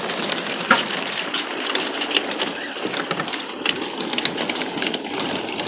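Rain and hail hitting an RV's roof and windows, heard from inside: a steady hiss of rain with sharp, irregular ticks of hailstones striking several times a second.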